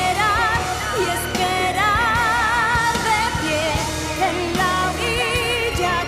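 Pop song performed live: a woman sings long held notes with wide vibrato over a band with drums.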